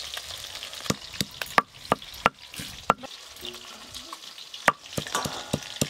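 Fish frying in oil in a wok over a wood fire, a steady sizzle, with about a dozen sharp, irregular snaps and pops through it.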